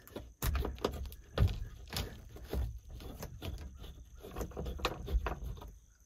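Sliding side window of a truck camper shell being handled: an irregular run of clicks, knocks and rattles from its latch and pane.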